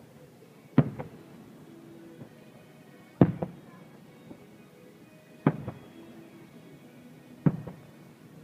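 Aerial fireworks shells bursting: four sharp bangs about two seconds apart, each followed a moment later by a weaker repeat.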